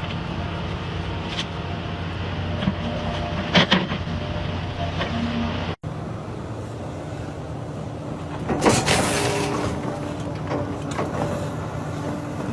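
Engine of a heavy wood-cutting machine running steadily, with a brief louder burst of noise about two-thirds of the way through.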